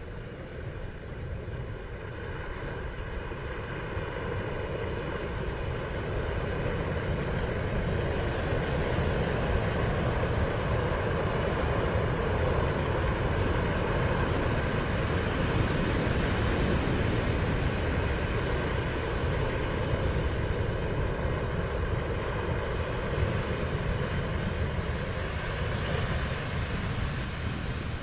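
Small ocean waves breaking and washing up a sandy beach: a steady low rushing that grows louder over the first several seconds, then holds.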